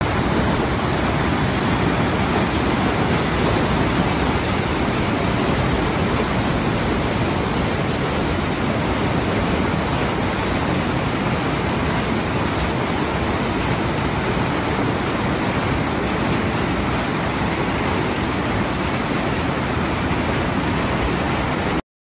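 Muddy floodwater rushing and churning in a fast torrent, a loud, steady rush of water that cuts off suddenly just before the end.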